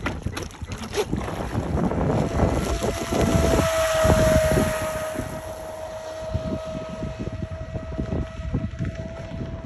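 Pro Boat Sonic Wake 36 RC boat's electric motor whining at speed as it runs out across the water. The steady whine starts about two seconds in, rises slightly to its loudest a couple of seconds later, then holds, under heavy wind noise on the microphone.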